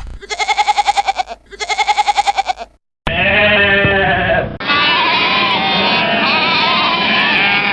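Farm animals bleating: two loud, quavering calls, then after a brief break a steadier call, and from about halfway through many overlapping bleats from several animals at once.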